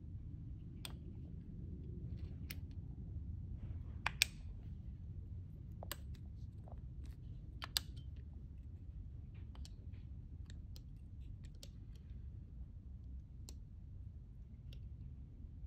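Scattered small clicks and taps of strut parts and tools being handled at a workbench, with two sharper clicks about four seconds and about seven and a half seconds in, over a steady low hum.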